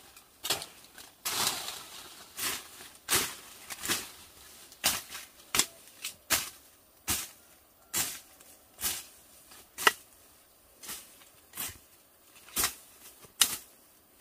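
Machete-type blade chopping through brush and plant stems: a steady series of sharp whacks, roughly one every three-quarters of a second, with a burst of leaf rustling about a second in.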